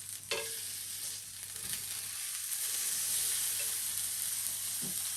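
Chicken kebab skewers sizzling in an oil-greased pan over a medium flame, a steady sizzle that grows a little louder partway through. A light knock near the start.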